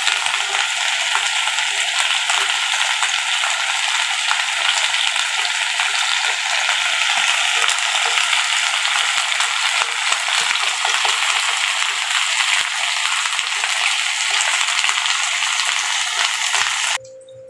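Pork steaks and onion rings sizzling in hot oil in a pan: a steady frying hiss dotted with small crackles, which cuts off abruptly near the end.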